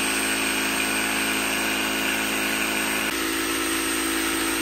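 Milwaukee Fuel cordless jigsaw running steadily as its blade saws through a 3/4-inch wooden board. Its pitch shifts slightly about three seconds in.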